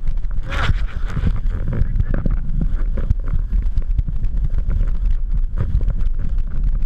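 Wind rushing over a GoPro camera's microphone during a ski descent, a steady low rumble, with the scraping and chattering of skis on snow throughout and a brief louder hiss of snow about half a second in.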